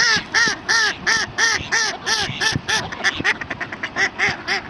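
Duck quacking in a long regular series, about three quacks a second, with a quicker run of short notes a little after three seconds in.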